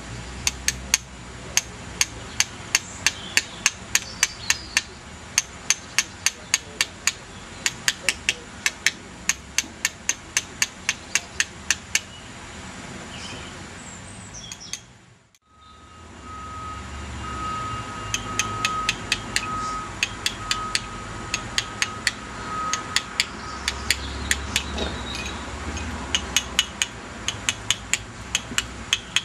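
Hand chisel struck over and over, carving Bath stone: sharp, even taps about three a second, with a short break about halfway through.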